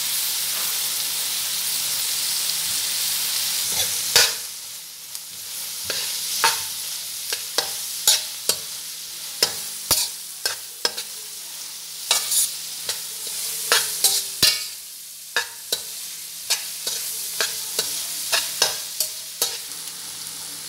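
Sliced onions, green chillies, ginger and garlic sizzling steadily as they fry in coconut oil in a wok. About four seconds in the sizzle drops and a stainless steel spatula scrapes and clacks against the pan over and over, about once or twice a second, as the mix is stirred with turmeric.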